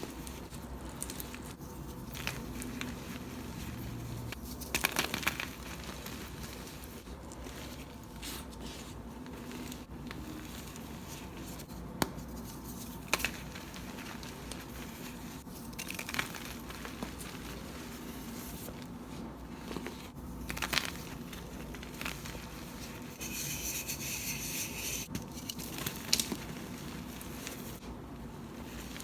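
Dyed crunchy chalk-style cubes being crushed and crumbled by hand, with sharp crunches every few seconds and a longer crumbling rasp near the end.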